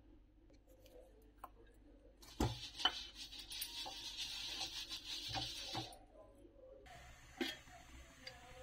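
Perforated steel momo-steamer plate being greased by hand: a couple of sharp metal knocks about two and a half seconds in, then a scratchy rubbing hiss across the steel, with a few more knocks, until about six seconds in.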